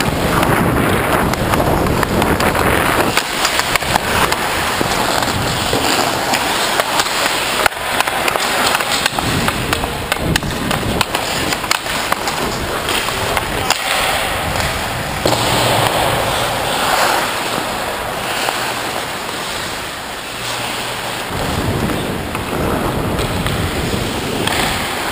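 Hockey skate blades scraping and carving across rink ice under the skater carrying the camera, a dense, continuous rasp with scattered sharp clicks and knocks.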